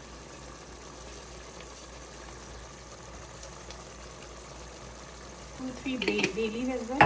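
Steady low hiss from a gas stove where a pot of tomato puree is simmering. Near the end a person's voice comes in briefly.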